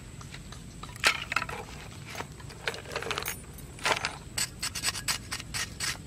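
Knocks and scrapes of hollow plastic pipes and cardboard being handled and put down on sandy ground, with one sharp knock about a second in. Near the end comes a quick run of small scraping clicks as a knife blade is drawn across the sand.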